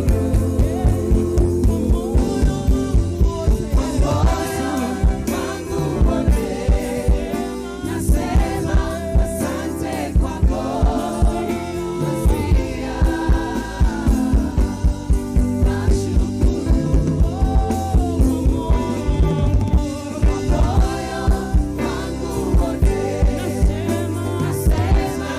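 Live gospel band with drum kit playing a steady, upbeat rhythm while singers carry the melody.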